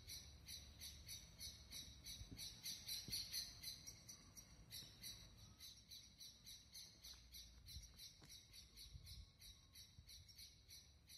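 Faint outdoor ambience: a steady, high chirping repeating about four times a second, over a low rumble.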